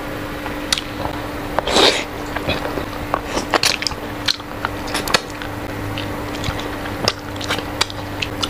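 Close-up eating sounds as a grilled milkfish's backbone is nibbled and sucked clean: a run of short wet clicks and smacks from lips and teeth, over a steady low hum.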